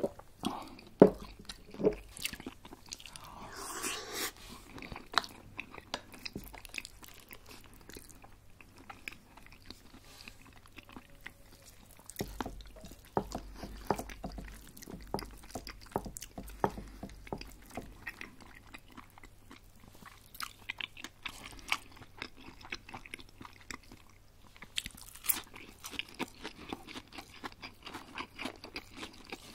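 Close-miked chewing and crunching: repeated crisp bites into breaded chicken schnitzel, with a steady run of small crackles as it is chewed.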